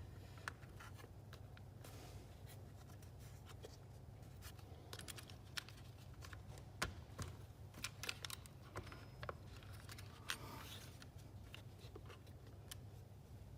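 Faint scattered clicks, small knocks and a brief scrape of chainsaw parts being handled as the chain brake band is worked onto the clutch drum. A low steady hum runs underneath.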